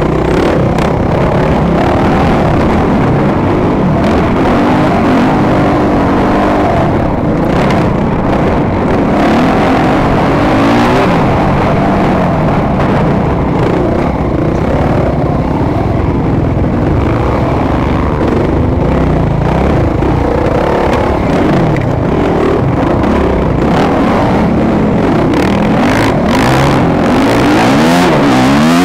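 Motocross bike engine running hard, its pitch rising and falling over and over as the throttle opens and closes through the race.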